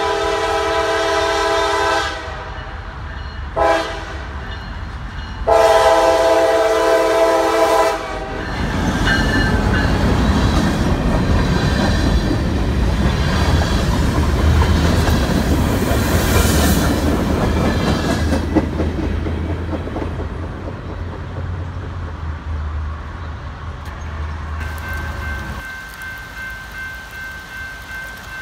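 A CSX EMD GP38-3 locomotive's air horn sounds a long blast, a short one and another long one for a grade crossing. The train then passes close by, rumbling, with the clickety-clack of freight car wheels over the rails. Near the end comes a steady, fainter ringing from the crossing's warning signal.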